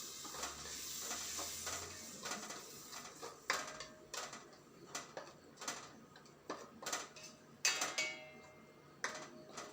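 A cooking utensil stirring in a pan, clinking and knocking against it about once or twice a second, some knocks ringing briefly.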